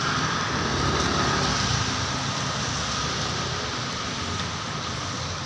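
Street traffic: cars driving past on a wet road, with engine noise and a steady hiss of tyres on the wet surface.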